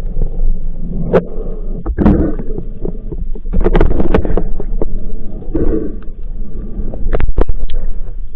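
Loud, muffled water and movement noise with a heavy low rumble, peppered with sharp clicks and knocks, swelling in noisy surges about two seconds in and again from about three and a half seconds.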